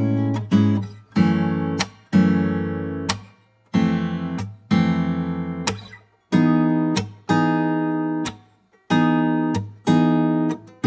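Background music: strummed acoustic guitar chords, struck about once a second, each ringing out and fading before the next.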